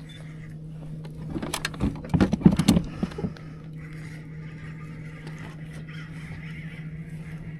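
Steady low hum of a boat's motor, with a burst of knocks and clatter from about one and a half to three seconds in; a fainter, higher steady hum joins about four seconds in.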